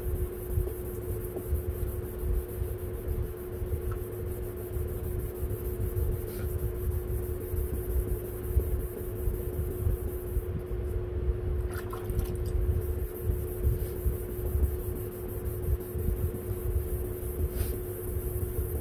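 Wet sandpaper scrubbing on a plastic headlight lens, over a steady hum and a low rumble.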